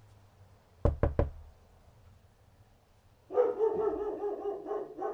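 Three quick sharp knocks, then a dog barking in a run of about two seconds.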